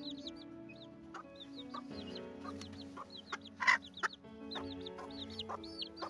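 Chicks peeping over and over in short high chirps while hens cluck now and then, with one louder cluck about four seconds in.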